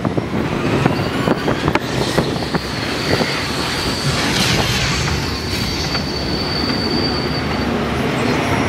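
Test Track ride vehicle running along its track with a steady rumble and rattling knocks. A thin, high-pitched squeal holds for about five seconds in the middle.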